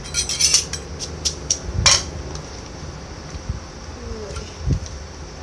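A wooden pestle knocking in a clay som tam mortar: a quick run of knocks and clinks in the first second, a few more strikes, the loudest about two seconds in, then only light handling sounds.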